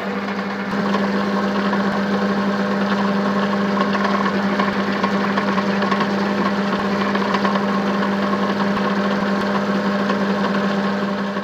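Metal lathe running steadily while its tool turns a taper on a cast aluminium-bronze (95% copper, 5% aluminium) workpiece: a steady motor hum under the rough noise of the cut.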